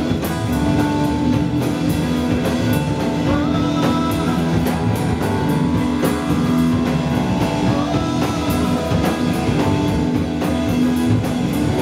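Live rock band playing electric guitar, bass guitar, keyboard and drums, with cymbal strokes keeping a steady beat.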